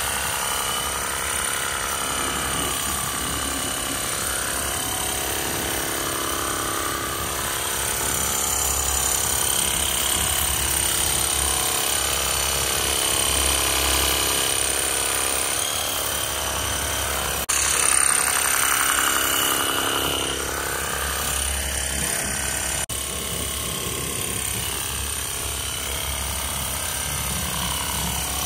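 VARSK VAR-910 20V cordless pressure washer running, its battery-driven pump buzzing steadily under the hiss of the water jet striking a car's wheel and tyre. It is briefly louder about eighteen seconds in.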